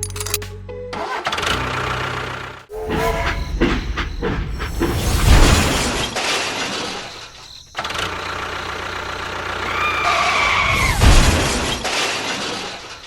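Loud background music in dense, noisy sections, cut by two brief drop-outs.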